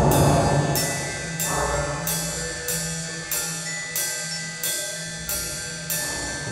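Improvised ensemble music. The full band thins out about a second in, leaving a steady beat of ringing metallic strikes about one and a half times a second over some held high notes.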